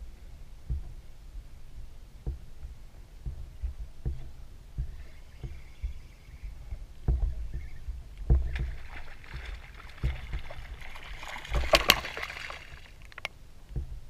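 Small waves slapping and knocking against a small boat's hull in irregular low thumps, with a burst of surface splashing lasting about four seconds, starting just past the middle.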